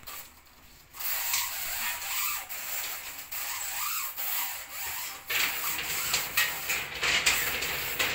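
Electrical wires being pulled through a concealed ceiling conduit, making a rough scraping and rubbing that starts about a second in and comes in uneven pulls.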